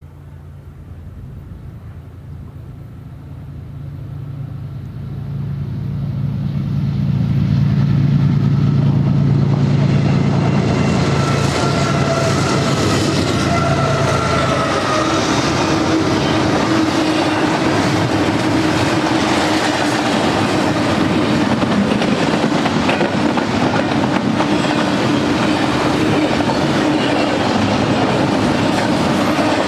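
BNSF diesel freight locomotives approaching and passing, a deep steady engine rumble that grows louder over the first several seconds and drops away about halfway through. After them, double-stack container cars roll by with a steady rumble and wheel clatter over the rails.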